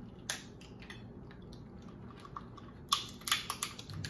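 Boiled lobster shell cracking as it is broken open: one sharp crack about a quarter second in, then a quick run of cracks and snaps about three seconds in.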